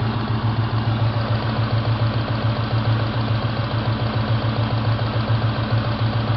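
Ford Mustang 4.6-litre V8 idling steadily, with an even, regular pulse.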